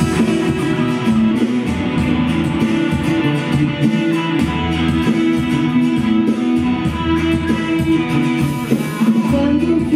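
Live band playing an instrumental intro led by acoustic and electric guitars, with bass underneath.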